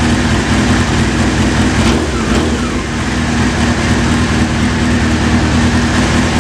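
Honda CBR600F2 inline-four motorcycle engine running steadily through a Jardine RT1 aftermarket exhaust pipe, echoing in a garage.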